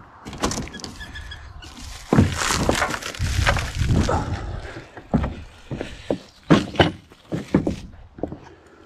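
Plastic stretch wrap crinkling and cardboard rustling as plastic-wrapped steel sawmill parts are pulled about in a cardboard shipping crate, with a dense rustle in the first half. Then a string of sharp knocks and thuds.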